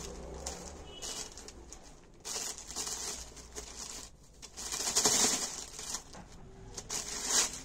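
Rustling and crinkling in bursts as cricket batting pads are handled and pulled out of the kit bag and its wrapping. The bursts come about two seconds in, loudest around five seconds in, and again near the end.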